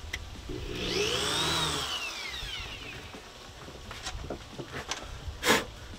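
Cordless drill boring a screw hole through the hatch flange into the boat deck, its motor speeding up and then winding back down. Scattered clicks follow, then two sharp knocks near the end.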